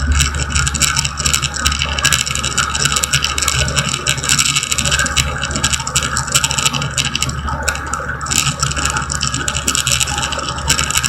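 Steady engine and propeller drone inside a light aircraft's cabin in flight, with a low hum and irregular crackling and rattling over it.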